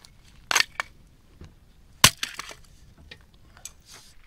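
An axe chopping a short log stood on end, splitting it apart. A splintering strike comes about half a second in, then a single sharp chop about two seconds in, which is the loudest.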